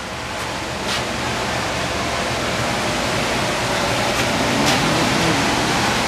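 Large squirrel-cage furnace blower running: a loud, even rush of air over a low motor hum, swelling over the first couple of seconds and then holding steady.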